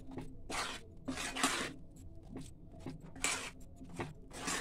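Metal spatula scraping and stirring thick, oily red-chilli pickle masala around a pan, in a few irregular scraping strokes with squishy sounds from the paste.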